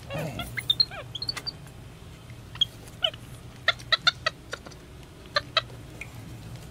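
Capuchin monkeys giving short, high squeaky chirps and peeps, several in quick runs.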